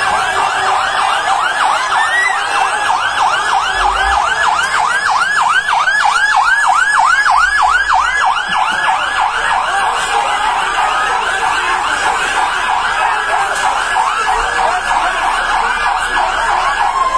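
Fire engine siren on a fast yelp, its pitch rising and falling about four times a second.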